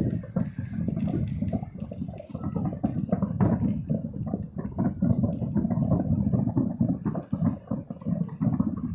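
Fireworks going off in quick succession, many booms and crackles overlapping into a dense, continuous rumble.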